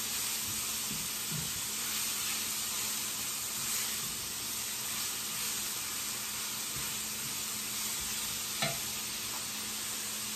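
Sliced beef sizzling steadily in hot coconut oil in a skillet as it is stirred and tossed with a spatula to brown. There is a single sharp knock near the end.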